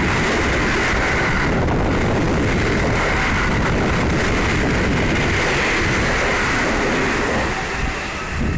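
JR West electric commuter train running past along the platform: steady wheel-on-rail and running noise that eases off near the end as the last cars go by.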